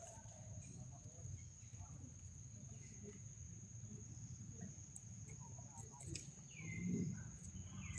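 Faint outdoor ambience: a steady high-pitched insect drone over a low rumble, with a couple of short, falling squeaks near the end.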